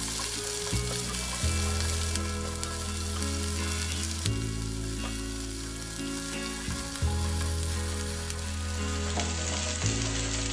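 Sliced onions, ginger and garlic sizzling steadily in hot oil in a frying pan as they are stirred with a spatula and sautéed until wilted. Background music's low held notes sit underneath.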